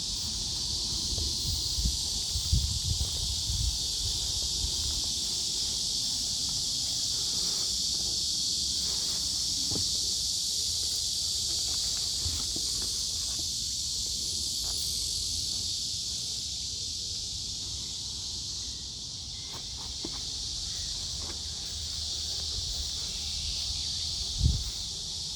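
A steady high-pitched chorus of cicadas buzzing without a break. There are a few soft low thumps in the first few seconds and one louder knock near the end.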